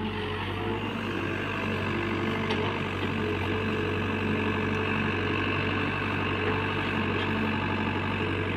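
Heavy diesel engine of a JCB backhoe loader running steadily.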